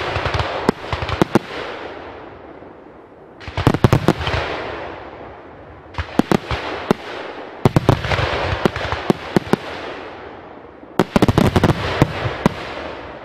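Fireworks display: about five volleys of sharp bangs a few seconds apart, each volley followed by a rush of noise that fades away.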